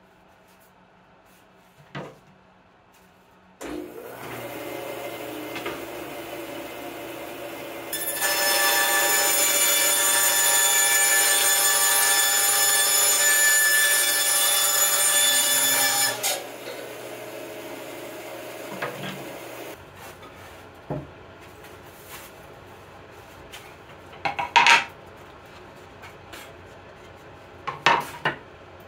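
Bandsaw switched on about four seconds in and running, then cutting through a thin plywood sheet for about eight seconds, a loud steady whine; after the cut it runs free and stops about twenty seconds in. A few sharp knocks of handling follow.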